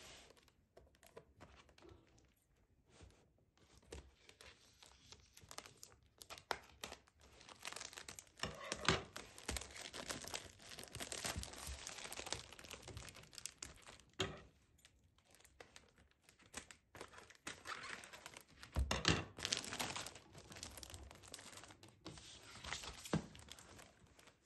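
Clear plastic shrink wrap crinkling and tearing as it is pulled off a cardboard box, in irregular spells of crackling with a few sharp knocks.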